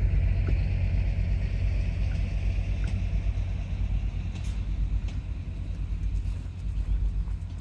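GHE T1 narrow-gauge diesel railcar moving away, its low rumble fading slowly, with a few faint clicks.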